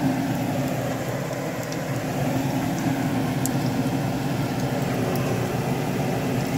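Hot oil sizzling around moong dal fritters shallow-frying in a pan, with a few sharp pops over a steady low hum.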